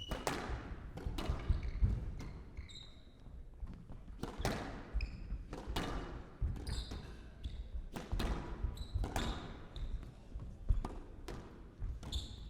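Squash rally: the ball being struck by rackets and cracking off the walls about every second, with sharp squeaks of court shoes on the floor between shots.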